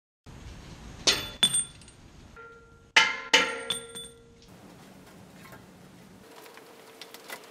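Hand tools clinking and clanking against metal on a vehicle: two quick clusters of about three sharp strikes each, every strike ringing briefly.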